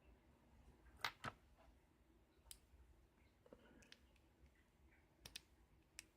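Small hard objects being handled at a lock-picking bench: a few sharp clicks and taps against quiet, a pair about a second in, one near the middle and three more near the end.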